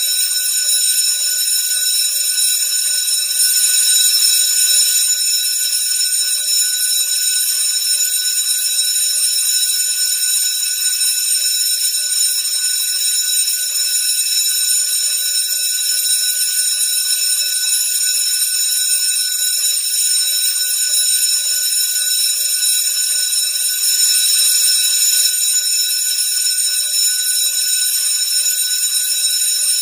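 School bell ringing continuously: a loud, steady, high ring with many overtones that never pauses or changes.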